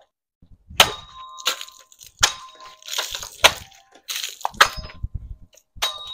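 A series of sharp knocks, roughly one a second, each with a brief metallic ring.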